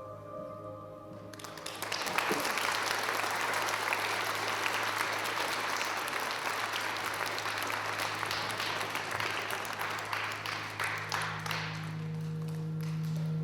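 Audience applauding for about ten seconds after sustained music ends, the clapping thinning out near the end as a low held note of new music comes in.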